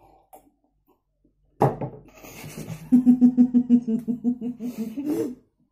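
Held-back laughter bursting out: silence, then a sudden outburst about a second and a half in, then an even run of rhythmic laughing pulses, forced through a hand held over a mouth full of drink.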